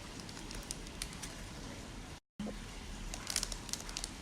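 Light handling noise: faint rustles and small clicks of makeup brushes and packaging being handled, busier in the second half, over low room hum. A brief cut to total silence about two seconds in.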